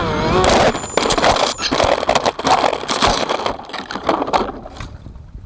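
The FPV wing's electric motor whine drops in pitch, then the wing crashes through dry brush and tree branches: a few seconds of scraping, snapping and crunching that dies away near the end as it comes to rest.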